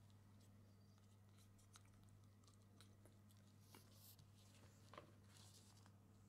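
Near silence: a steady low hum, with faint scattered ticks and soft rustling from a hand scratching a kitten's fur and the kitten's claws on a plastic tablecloth.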